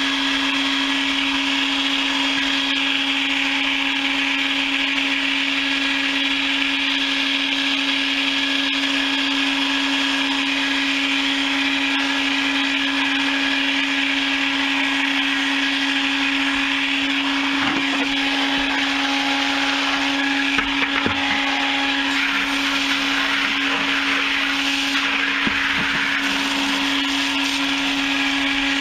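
Motor-driven chicken plucker running with a steady hum, with scattered knocks and rubbing about two-thirds of the way in as it works.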